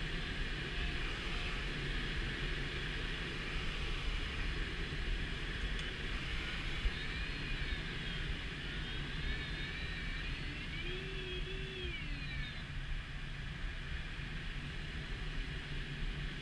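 Steady rush of air streaming past the ASK 13 glider's canopy in flight. For several seconds in the middle, a faint whistle-like tone slides up and down in pitch over it.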